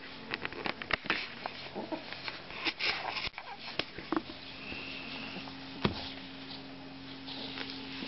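Pug puppy scuffling and sniffing on a carpet while chasing its tail: a quick run of clicks and rustles over the first four seconds, then one sharp click near six seconds, over a steady low hum.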